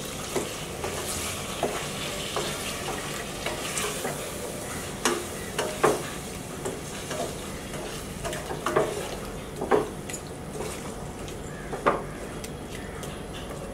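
Wooden spatula stirring and scraping coconut chunks through a spice paste in a metal pot, knocking against the pot at irregular intervals over a steady sizzle of frying. The coconut is being fried down in the masala with a little water.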